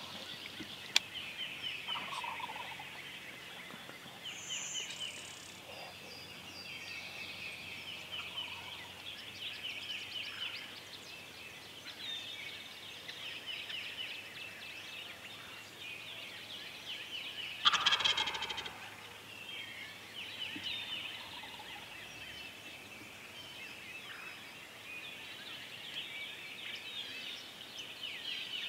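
A wild turkey gobbler gobbles once, a loud rattling call of about a second, a little past the middle. Under it runs a steady chorus of high, rapid trills.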